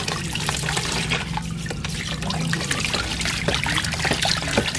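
Water from a garden hose splashing steadily over a plastic tube and the hands rinsing it, and pouring into a tub of water below.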